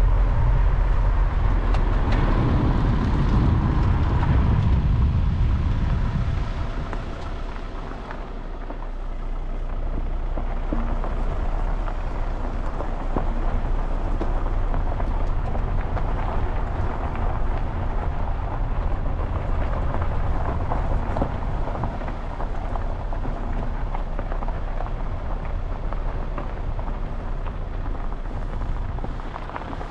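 Car driving slowly along a rough gravel track: a heavy low rumble for the first few seconds that eases off, then steady road noise with tyres crackling over loose stones.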